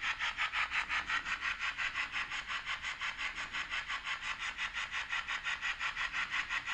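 Medium-wave AM radio's speaker playing interference picked up from a switched-mode power supply, a rapid, even pulsing buzz. It can be a clue that the supply's switching circuit is oscillating and working.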